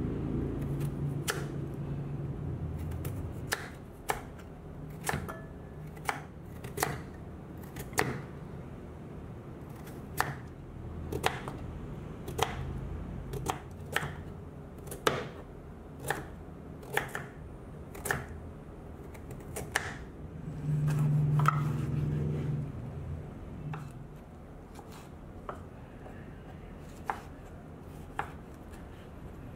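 Knife cuts through firm vegetables onto a wooden chopping board. A crinkle-cut knife slices potatoes and carrots, then a kitchen knife cuts red peppers, each stroke ending in a sharp tap on the board, roughly one a second. A low steady hum runs underneath and swells briefly about two-thirds of the way through.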